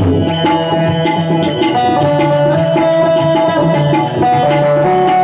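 Instrumental interlude of a Gujarati bhajan: a banjo plays the melody in held notes that step from pitch to pitch over a steady tabla rhythm.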